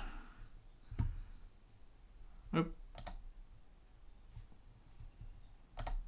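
Computer mouse buttons clicking: one click about a second in, two more around two and a half to three seconds, and a quick pair near the end.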